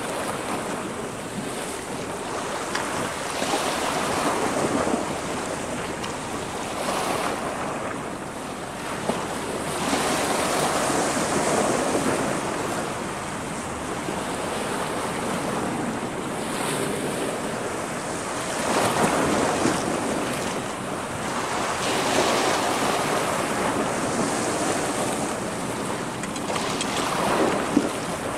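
Sea waves washing against a rocky shore, the surf swelling and falling back every few seconds.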